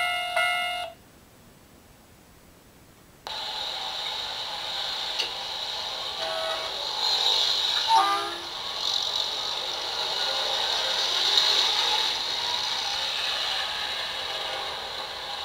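Recorded sound effects from a Tomytec Diorama Collection model-railway sound unit's small speaker. A Japanese level-crossing warning bell dings about twice a second and cuts off about a second in. After two seconds of faint hiss, a steady recorded town bustle starts, with a few short tones in the middle.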